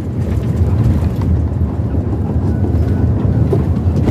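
Steady low rumble of road and wind noise from a vehicle driving along a highway.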